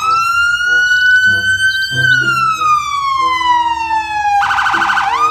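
Police car siren wailing: a slow rise and fall in pitch, breaking into a fast warble near the end before rising again. Background music plays underneath.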